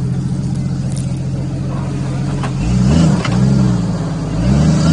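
Off-road 4x4's engine running at low revs, revved up twice. A few light knocks come just before the first rev.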